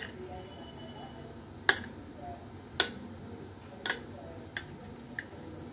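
A metal spoon clinking against the side of a metal cooking pot while cooked biryani rice is lifted and turned. There are about six sharp clinks, roughly a second apart, and the ones in the middle are the loudest.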